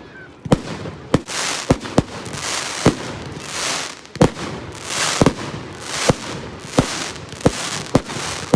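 Fireworks going off: a quick run of about a dozen sharp bangs, one or two a second, over a hissing crackle that swells and fades between them.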